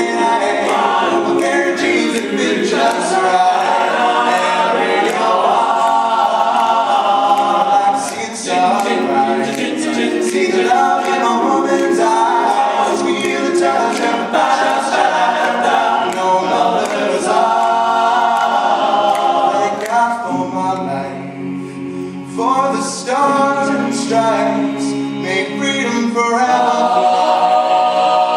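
All-male a cappella group singing a country song: one male solo voice carries the melody over the ensemble's sung backing, with no instruments. The backing thins out and the singing gets briefly quieter about twenty seconds in.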